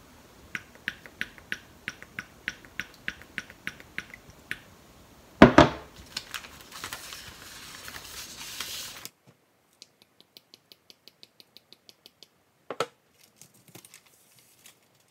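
Soy sauce dripping from its bottle into a metal measuring spoon, a run of small even ticks about three a second. About five seconds in comes a sharp knock, then a plastic zipper bag crinkling as the spoonful goes in. After that comes another, fainter run of drip ticks, about five a second.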